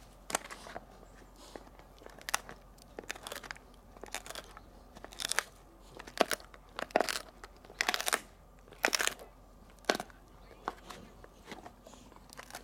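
Golden retriever chewing a pig ear, its teeth crunching and cracking the hard chew in irregular bursts, loudest and most frequent from about five to nine seconds in.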